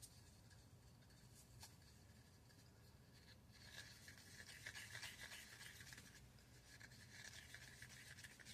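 Faint scraping of a wooden stir stick around the inside of a paper cup, mixing pigment into liquid resin; it grows louder and busier a few seconds in.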